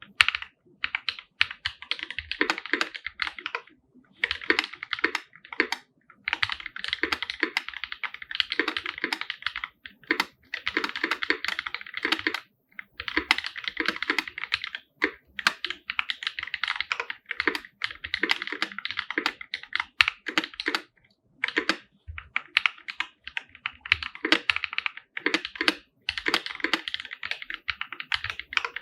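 Fast, continuous typing on a 50% custom mechanical keyboard with an aluminium case, OG Holy Panda tactile switches and GMK keycaps: dense runs of key clacks broken by brief pauses.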